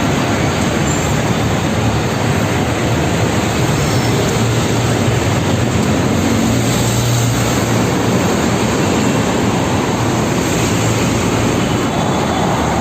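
Steady, loud mechanical drone with a low hum underneath, unchanging throughout.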